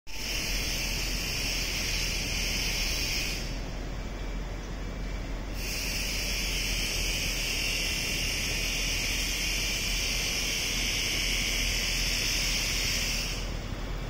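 Cicadas buzzing loudly in a high, steady drone that breaks off for about two seconds a few seconds in, then resumes and dies away shortly before the end, over a low steady city rumble.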